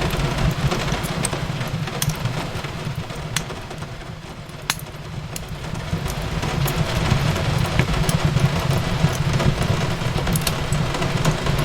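Fireplace crackling: scattered sharp pops and snaps over a steady low rumble and hiss, with one louder pop a little before the middle. The rumble eases off around four seconds in and builds back up.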